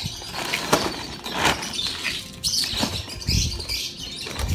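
Woven plastic sacks rustling and scraping as they are shifted about, with a few short sharp clicks and knocks.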